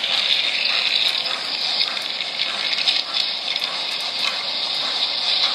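MTH O-gauge model trains running on three-rail track laid on a plywood table: a steady rolling hiss with faint clicks of the wheels.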